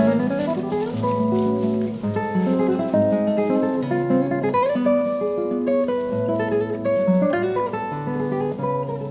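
Background music: acoustic guitar playing a melody with sliding notes over steady bass notes.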